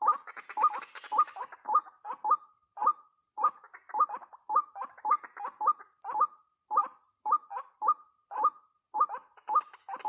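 White-breasted waterhen (ruak-ruak) calling: a steady run of short, rising, croaking notes, about two a second, with a faint steady high-pitched hiss behind.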